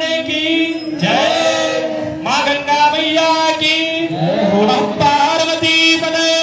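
Devotional chant-like singing by a man's voice, with a steady drone note held beneath it.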